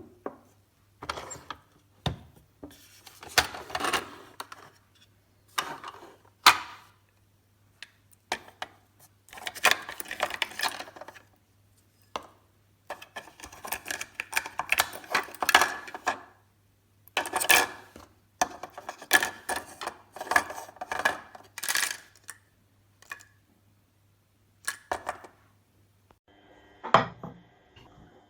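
Handling noises from a small coffee machine and its plastic parts: irregular bursts of rubbing, rattling and light clicks and knocks. Near the end a steady pitched hum starts.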